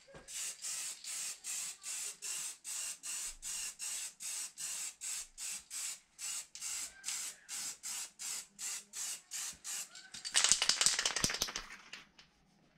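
An aerosol spray paint can being shaken, its mixing ball rattling inside in a steady rhythm of about three and a half strokes a second. Near the end comes a louder hiss of spray from the nozzle, lasting about a second and a half.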